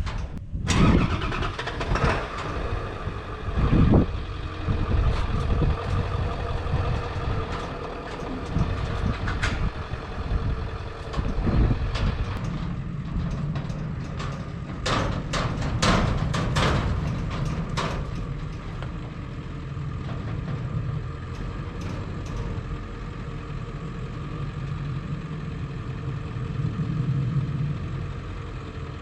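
Truck engine running steadily, with loud metal clanks and knocks over the first part, as from a livestock trailer loaded with cattle.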